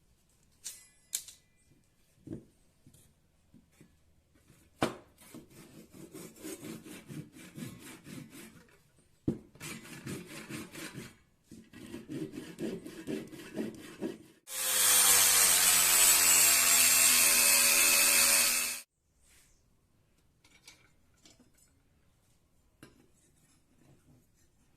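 Wood being worked by hand in quick rhythmic strokes, sawing or rasping, in two stretches with a pause between them. Then a power tool runs steadily for about four seconds and cuts off, the loudest sound here, followed by a few light clicks of handling.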